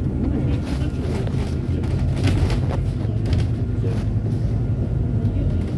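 Steady low rumble of a bus's engine and running gear, heard from inside the passenger cabin, with faint rattles and ticks of interior fittings.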